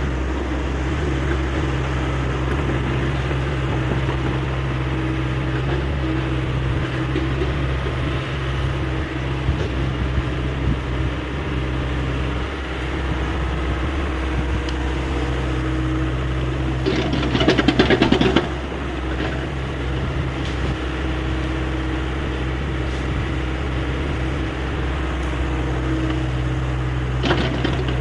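Hyundai 85A excavator's diesel engine running steadily at work. A loud rattling clatter lasts about a second and a half around two-thirds of the way through, with a shorter clatter near the end.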